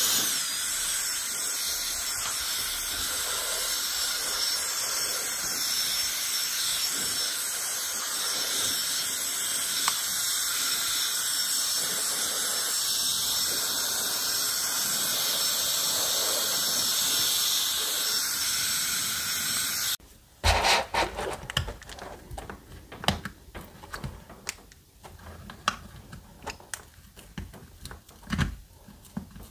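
EUKI F31 turbo-fan air duster running on low speed: a steady rush of air with a high fan whine, which cuts off suddenly about twenty seconds in. After it come scattered clicks and taps of a thin pry tool working at the duster's plastic casing.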